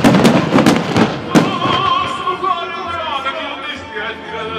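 A rapid string of fireworks shells bursting in the first second and a half. Then a song from the show's music soundtrack, with a singer's wavering voice with vibrato.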